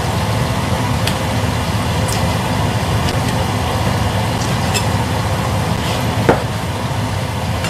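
Kitchen knife cutting squid on a plastic cutting board, with about half a dozen light taps of the blade on the board. A steady low rumble runs underneath.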